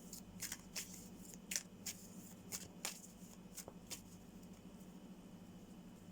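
Tarot cards being shuffled by hand: a run of quick, soft card flicks and swishes about every half second, dying away after about four seconds, over a faint steady hum.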